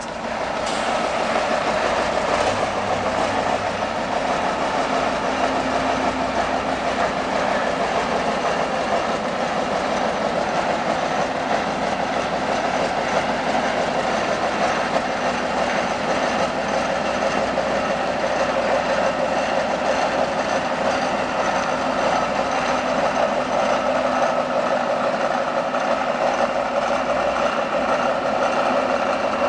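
Tatra 815 tipper truck's air-cooled diesel engine running steadily under way at low speed.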